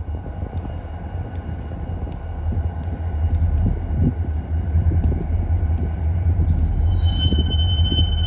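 Freight stone train with diesel locomotives rumbling heavily, growing steadily louder. A set of high-pitched tones joins the rumble about seven seconds in.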